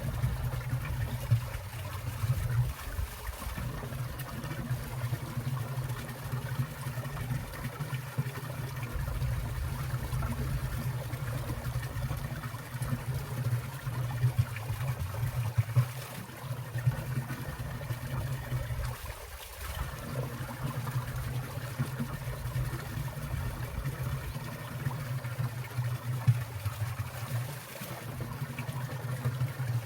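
Water in a winter mountain stream trickling and splashing steadily, with small irregular splashes.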